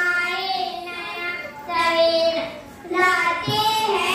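A young girl singing an Urdu poem (nazm) into a microphone in long held notes, with a short break between lines.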